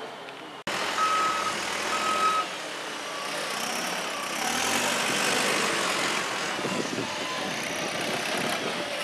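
A construction vehicle's backup alarm beeping twice, about a second apart, over the steady noise of engines and site machinery.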